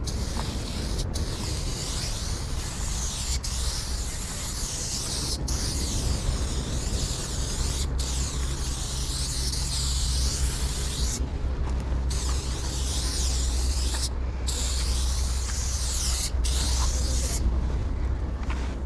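Aerosol spray paint can hissing in long strokes on a concrete wall, broken by several short pauses between strokes, over a steady low rumble.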